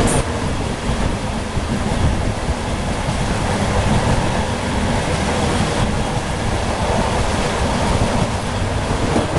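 Running noise of an Electroputere 060-EA electric locomotive under way: a steady low rumble with irregular knocks and rattles from the body and running gear.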